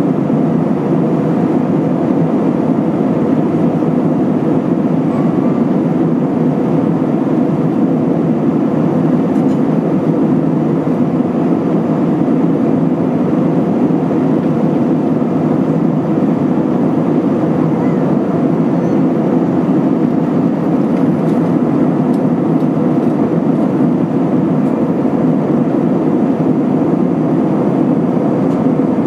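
Steady cabin noise inside an Airbus A320-232 in flight: an even, low rush of air over the fuselage together with the drone of its IAE V2500 engines, holding at one level throughout.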